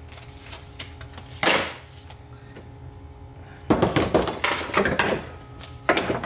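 Metal tools and starter-motor parts clattering and knocking against each other and the workbench as the starter is worked on in a vise: one short scrape about a second and a half in, then a run of loud knocks and rattles from near four seconds to five, and more near the end.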